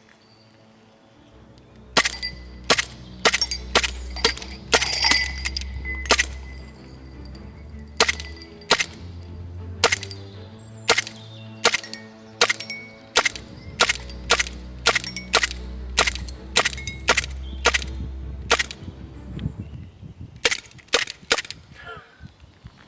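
Airsoft pistol firing many sharp shots in quick succession at drinking glasses, with a glass shattering at least once, over background music with a deep bass line.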